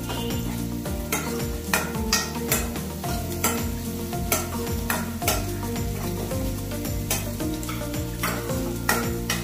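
Metal ladle stirring chopped shallots frying in oil in a metal kadai: a steady sizzle with sharp scrapes and clinks of the ladle against the pan about once or twice a second.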